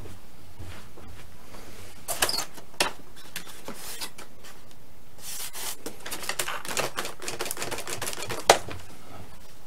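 Hands working at a foam RC-plane rudder: a few clicks about two seconds in, then a run of rapid crackling clicks from about five seconds, ending in one sharp click near the end, the loudest sound.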